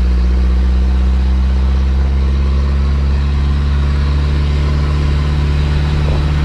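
Moving truck driving at a steady speed, heard from the cab: a constant low engine drone with road noise.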